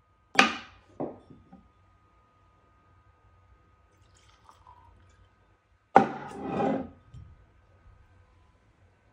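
Glass bourbon bottle and tasting glass being handled on a wooden barrel-top table: two sharp knocks in the first second, a faint trickle of whiskey poured into the glass around the middle, then a loud knock with about a second of scraping as the bottle is set back down on the wood.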